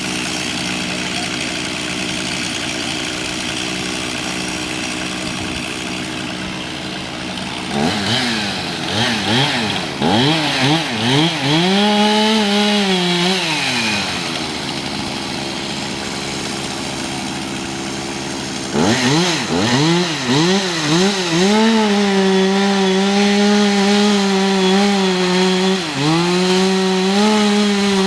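Two-stroke chainsaw with a 20-inch bar cutting into a large tree trunk. It runs steadily at low speed at first, is blipped and held at high revs for a few seconds, and drops back. It then revs up again into a sustained cut, its pitch sagging briefly under load near the end.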